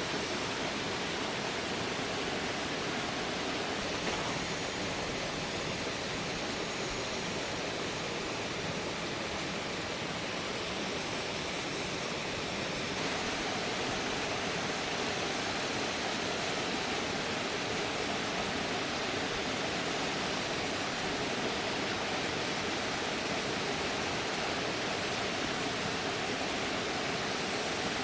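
A steady, even rushing noise, like running water, with a slight change in its character about halfway through.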